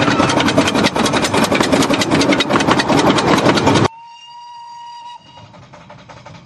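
Narrow-gauge steam tank locomotive passing close by, loud with rapid, even exhaust beats and wheel-on-rail noise. After a sudden cut about four seconds in, a single steam whistle blast of a little over a second sounds from further off, then the engine's beats carry on faintly.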